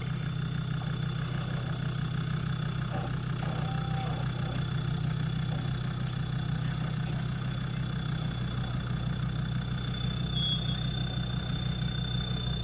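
Land Rover Td5 five-cylinder turbodiesel idling steadily on a steep off-road slope.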